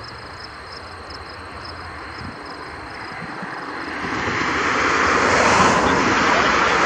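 Boeing 757-200's jet engines roaring as the airliner rolls out on the runway just after landing. It is a broad rushing roar that swells from about three seconds in and peaks near the end.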